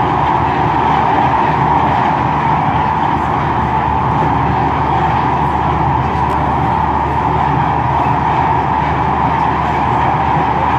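Tram running at speed, heard from inside the passenger car: a loud, steady rumble and rush of wheels on rail with no breaks.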